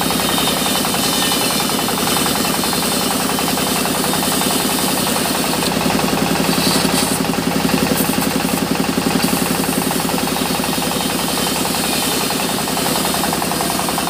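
Sawmill band saw cutting a mahogany plank lengthwise: a loud, steady machine drone with a fast, even pulsing.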